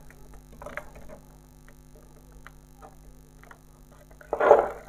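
Faint taps and scrapes of a plastic set square and a marker against a whiteboard over a steady low hum, with a louder brushing scrape near the end.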